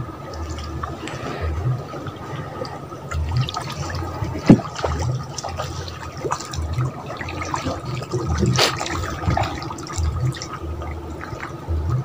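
Water sloshing and gurgling around a small fibreglass boat as it is moved through the shallow water of a fishpond, with a sharp knock about four and a half seconds in and a weaker one near the end.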